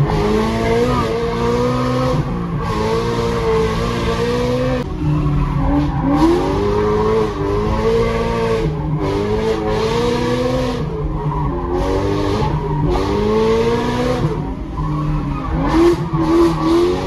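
Car engine, heard from inside the cabin, driven hard: the revs climb and drop back over and over as the driver accelerates and lifts between bends, with tyres skidding and squealing at times.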